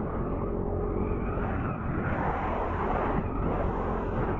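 Yamaha Aerox scooter engine running at a steady cruising speed, with wind rushing over the microphone; the wind hiss grows stronger about two seconds in.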